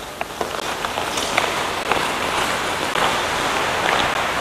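Hockey skate blades hissing and scraping on the ice, growing louder over the first couple of seconds, with a few sharp clacks of sticks striking the puck.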